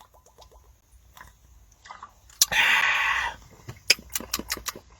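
Drinking sounds from a bottle of carbonated soda: a breathy hiss lasting just under a second about halfway through, then a quick run of clicks and gulps.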